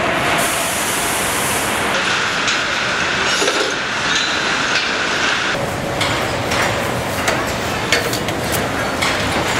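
Truck chassis assembly line din: a steady noise of conveyors and machinery, with a faint high hum through the first half, then a run of short metallic clicks and clanks from about six seconds in.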